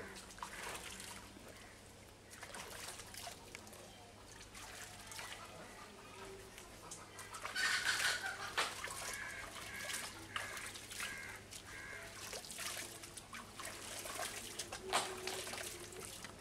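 Poultry clucking in short, repeated calls, loudest about halfway through, over scattered knocks and clicks.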